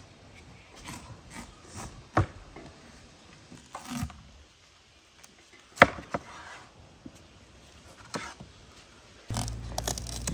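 Scattered knocks and taps of whole watermelons being handled on a table and of knives cutting through watermelon rind; the sharpest knock comes about six seconds in. Near the end a steady low rumble comes in.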